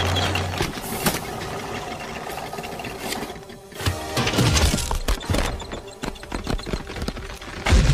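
Cartoon sound effects of a small contraption of sticks and seed husks clattering and tumbling, a rapid run of knocks and rattles, over film score.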